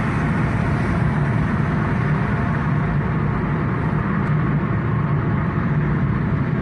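Steady running noise of a moving car, heard from inside the cabin: engine and road rumble with no breaks.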